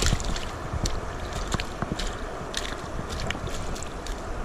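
Steady rush of wind on the microphone over flowing river water, with scattered light clicks.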